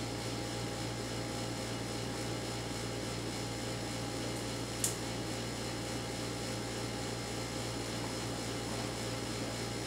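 Steady low hum of room noise, with a single short crack about five seconds in as a boiled crawdad's shell is broken open by hand.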